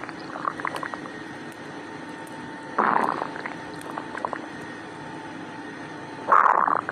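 Human stomach growling and gurgling: two louder gurgling rumbles, about three seconds in and near the end, with small bubbling gurgles between.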